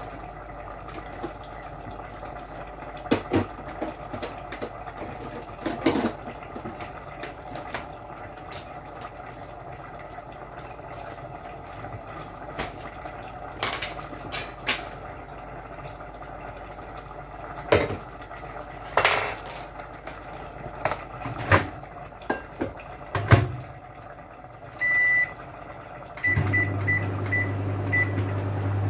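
Scattered clicks and knocks, then a microwave oven's beeps near the end as it is set and started, followed by its steady low hum as it runs.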